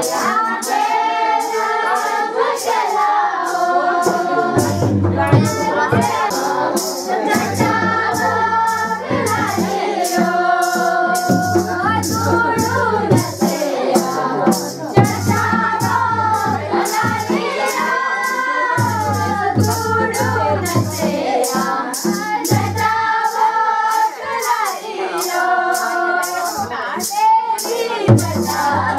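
Group of women and children singing a traditional Himachali Shiv bhajan together in repeated phrases, over a steady beat of sharp strikes about two a second.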